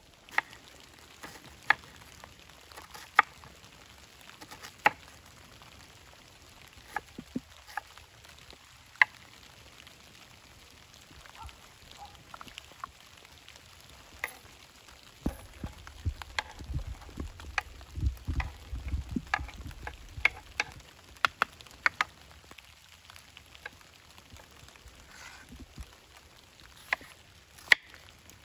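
Chef's knife slicing and chopping an onion on a wooden cutting board: sharp knocks of the blade on the board, single and spaced a second or more apart at first, then coming quicker in a run of chops in the middle, with a low rumble under the chops for a few seconds.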